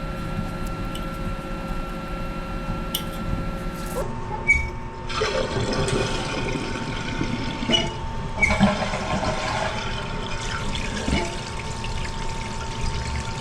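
Toilet flushing on a test after the flapper chain length is adjusted: a knock about four and a half seconds in, then water rushing through the tank and bowl.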